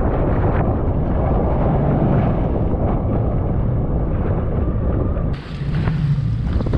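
Strong wind buffeting the microphone over a jet ski's engine running and choppy sea water, a steady loud roar. About five seconds in, the sound changes abruptly as it switches to a second camera's microphone.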